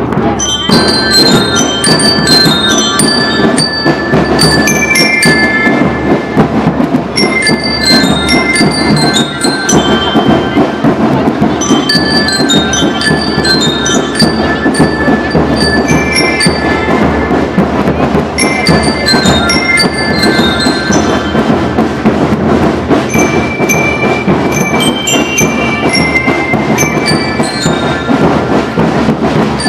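Marching band of bell lyres playing a repeated melody in ringing metallic notes, over steady drumming.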